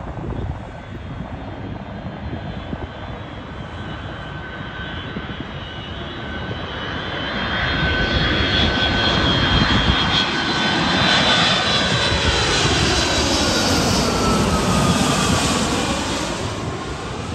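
Delta Boeing 757 jet airliner on final approach with its gear down, passing low overhead. Its jet noise swells from about six seconds in to a loud peak as it passes, then fades, and its engine whine slides down in pitch as it moves away.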